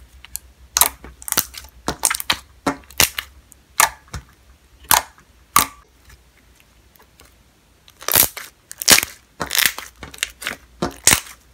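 Hands squeezing and folding a glossy, watery slime made with lotion and foaming soap, giving irregular sharp wet pops and clicks as trapped air bursts. There is a quieter stretch in the middle, then a quick run of pops near the end.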